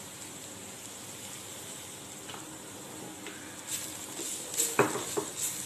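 Faint, steady sizzling of a cauliflower and carrot masala in a steel pan. Over the last two seconds a wooden spatula starts stirring, scraping and knocking against the pan several times.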